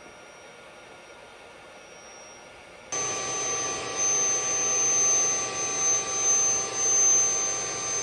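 An air mattress's electric air pump inflating it: a loud steady whining hum that starts suddenly about three seconds in and cuts off near the end. Before it, only a faint steady hiss.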